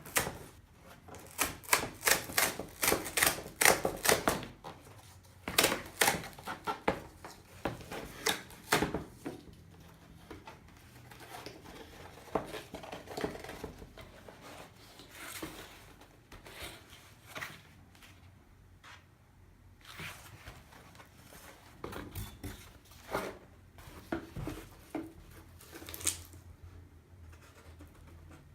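Hands opening and handling a mailed record package: a fast run of sharp clicks and crackles for the first nine seconds or so, then scattered rustles and taps.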